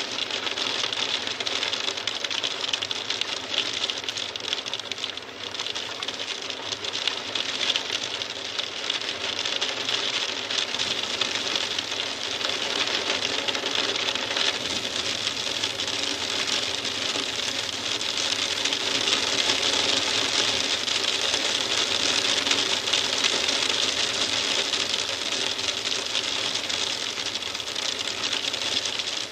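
Hail falling: a dense, steady clatter of many small hailstone impacts, with no let-up.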